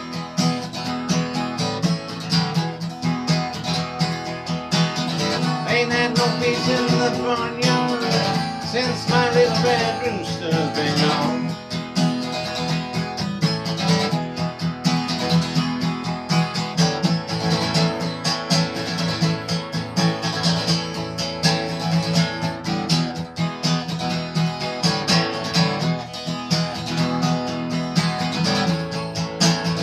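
Acoustic guitar playing an instrumental slow-blues break with picked single-note lines over a steady rhythm, with no singing.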